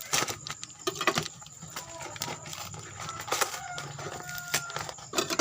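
Packaging being handled and pried open by hand: irregular clicks, crackles and rustles. A few short animal calls sound in the background midway through.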